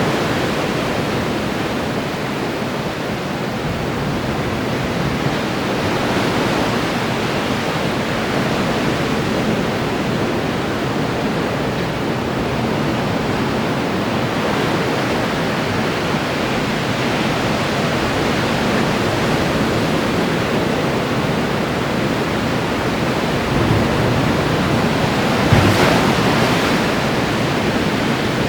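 Ocean waves breaking and washing on the shore in a steady, continuous rush, with a brief louder surge near the end.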